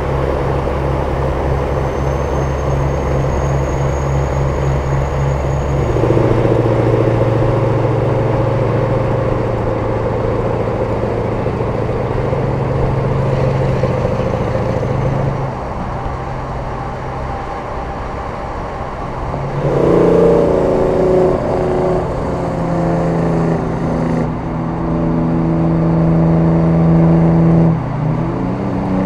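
Big-rig diesel engines running at a steady highway cruise. It is a held drone that switches to a different pitch and tone every several seconds, as a different truck takes over. The fullest, richest tone comes in the last third.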